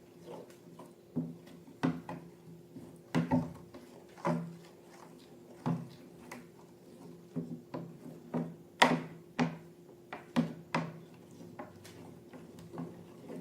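A series of irregular sharp clicks and taps from hands working with small objects and slime, the loudest about nine seconds in, over a steady low hum.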